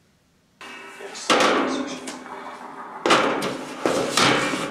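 A clear plastic storage box full of small packages being set down and pushed along a perforated metal shelf, with several hard knocks and clatters, the loudest a little over a second in and about three seconds in.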